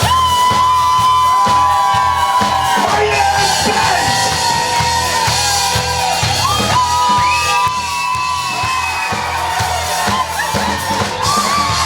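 Instrumental break of a party rap song: drums keep a steady beat under a long held lead melody that bends and slides in pitch, with the crowd shouting.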